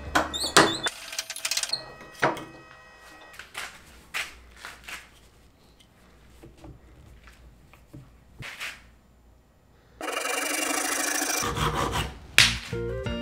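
A wooden workpiece knocked and handled, a few sharp wooden knocks in the first two seconds, then scattered lighter taps. Near the end a metal blade scrapes across the wood for about a second and a half, followed by a sharp knock.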